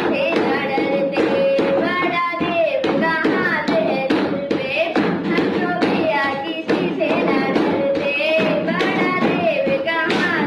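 A solo voice singing a melody in long, gliding held notes over a rhythmic tapping beat.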